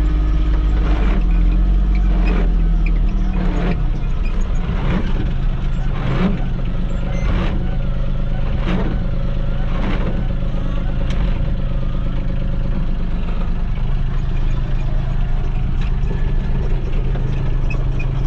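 Gator utility vehicle's engine running steadily while driving, its note dropping a little about four seconds in. A regular knock comes about every second and a quarter.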